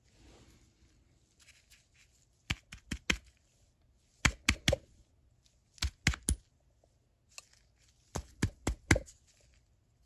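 Sharp clicks and knocks in four quick groups of three to five, from small ratchet parts being worked out of the ratchet head during disassembly.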